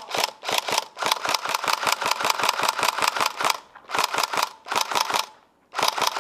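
Tokyo Marui Next Gen SCAR-L airsoft electric gun firing on full auto, its gearbox and recoil-shock mechanism clattering in rapid clicks. It fires in several bursts with brief pauses, one about two-thirds of the way in and another near the end.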